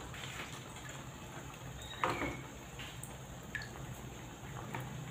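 Broth bubbling faintly in a wok after rice vermicelli has been added, with a few light clicks and drips, the loudest about two seconds in.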